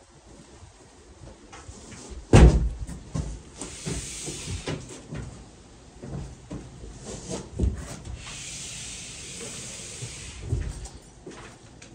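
Construction work: a few heavy knocks, the loudest about two seconds in, with stretches of hissing, scraping noise between them.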